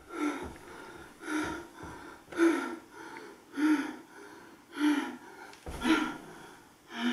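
A person panting heavily, with loud voiced gasping breaths about once a second, seven in all, out of breath after running a trot and canter test on foot. A dull thump comes near the end.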